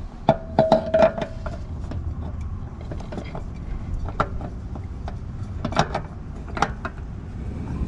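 Light clicks and knocks as a spin-on oil filter is handled and screwed back onto the engine. A quick run of them comes in the first second, one with a short ring, then single knocks come about every second, over a steady low rumble.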